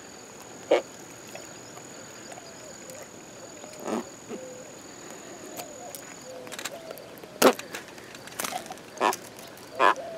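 A freshly caught channel catfish being held and unhooked by hand: a handful of short, sharp clicks and scrapes at irregular times, over a low steady background.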